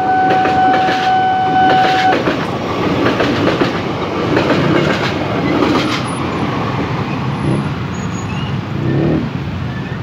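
KRL commuter electric train running past, with a steady rumble and repeated clicking of wheels over the rails. A steady high warning tone, the level-crossing alarm, sounds over it and cuts off about two seconds in.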